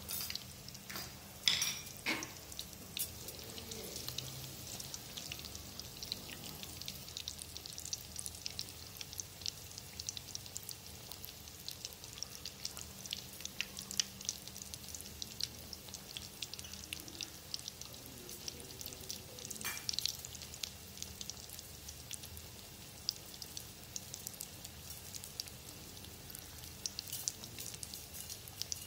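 Egg rolls deep-frying in hot oil in a kadai: a steady crackling sizzle of many small pops. A few louder clicks come near the start and about two-thirds of the way in.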